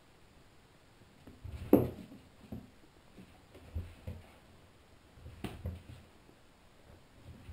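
Soft rustling and a few light knocks of a hand stroking and handling a ferret lying on a lap, close to the microphone, coming in irregular bursts with the loudest knock about two seconds in.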